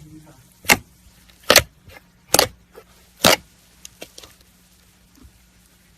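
Slime being squeezed and pressed, giving sharp popping clicks as trapped air bursts: four loud pops a little under a second apart, then a few fainter clicks.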